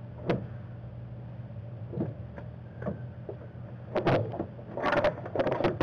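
Plastic coolant degas reservoir being worked free and lifted out of the engine bay. A few light knocks come first, then louder clattering and scraping of plastic against hoses and brackets over the last two seconds, over a steady low hum.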